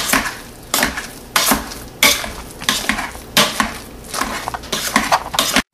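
Hand potato masher pushing down through hot boiled potatoes and milk in a stainless steel pot, knocking against the pot about every two-thirds of a second. The strokes cut off suddenly just before the end.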